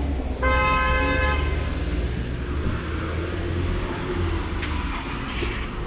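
A vehicle horn sounds once, a steady tone held for about a second near the start, over the low rumble of a vehicle engine running close by.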